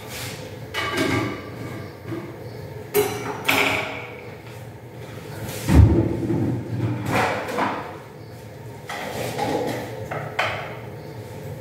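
Kitchen handling noises: a string of knocks, clatters and clinks as cookware and cupboard doors are handled, with one heavy thud about six seconds in, over a steady low hum.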